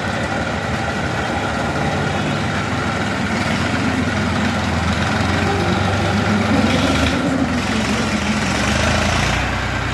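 TAFE tractor's diesel engine running as it pulls a loaded trailer of soil, its note rising and falling a little in the middle.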